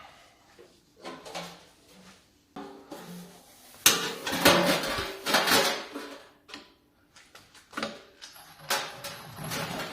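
Metal tools and parts clattering and clinking as they are handled, in irregular bursts that are loudest about four to six seconds in.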